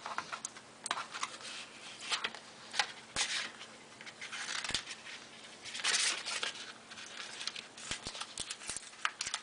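Small Allen wrenches being pulled free of tape on the back of the packaging. Scattered light clicks and knocks run through it, with a few short rustling, tearing swishes: one about three seconds in and a longer one near six seconds.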